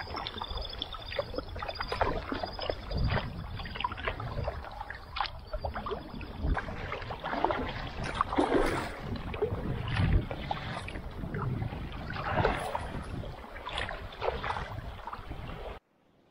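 Double-bladed kayak paddles dipping and splashing irregularly in moving river water, with wind rumbling on the microphone. The sound cuts off suddenly near the end.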